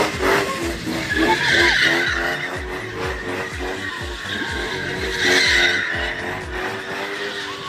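BMW E36 drift car sliding around a tyre stack, its tyres squealing and skidding, loudest in two long squeals about a second and a half in and again around five seconds.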